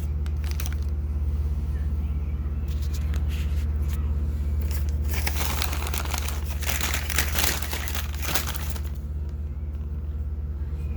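Plastic packaging crinkling and rustling as a knife is handled and unwrapped, densest from about five to nine seconds in, over a steady low hum.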